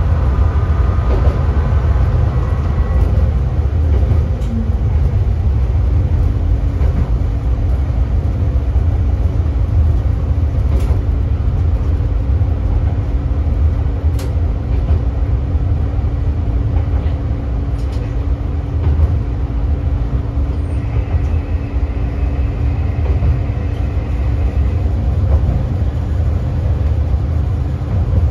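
KiHa 3710 diesel railcar running along the line: a steady low engine and wheel-on-rail rumble, with a steady hum coming in about six seconds in and a few sharp clicks.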